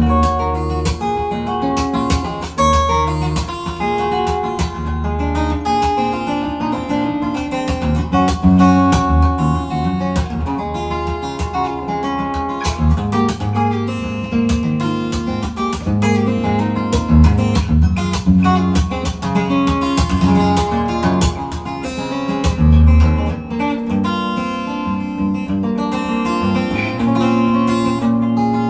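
Steel-string guitar played fingerstyle, improvised: plucked melody notes over deep ringing bass notes, with many sharp string attacks.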